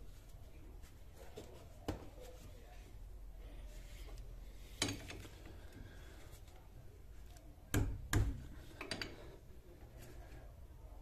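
A few sharp metallic clicks and knocks from a hand tool working the bolts of a Renault Logan's front brake caliper, over a faint low hum. The loudest is a quick pair of knocks a little over two thirds of the way in.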